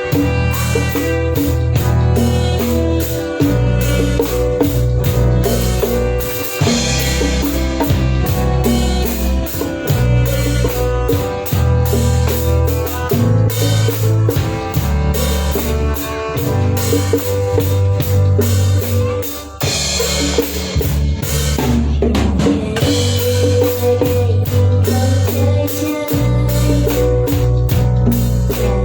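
A band playing an instrumental passage at a sound check: drum kit keeping a steady beat over a bass line, with the music dropping out briefly about two-thirds of the way through.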